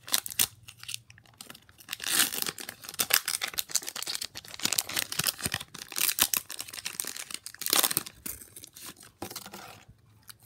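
Foil wrapper of a Pokémon trading card booster pack being torn open and crinkled in the hands: a run of sharp crackling rustles with short pauses, quieter near the end.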